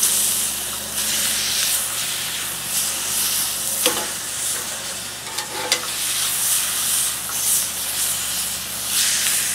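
T-bone steak's fat edge sizzling hard against a hot ridged cast iron griddle pan as it is charred, held on its side with metal tongs. Two sharp clicks of the tongs on the pan, about 4 and 6 seconds in.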